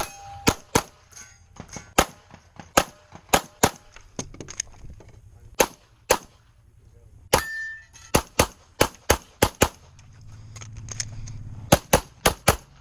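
A 9mm Glock 34 Gen 5 pistol fired rapidly through a USPSA stage: about twenty sharp shots in quick pairs and strings, with short gaps between strings. A couple of hits draw a brief ring from steel targets.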